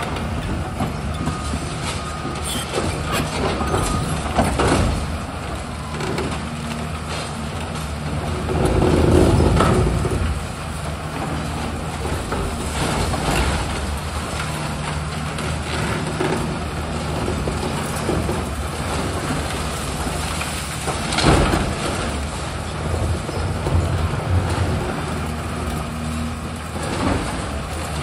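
Demolition excavator's diesel engine running steadily while its arm breaks into the concrete floors of a building, with repeated knocks and clatter of falling rubble. Louder crashes come about nine seconds in and again about twenty-one seconds in.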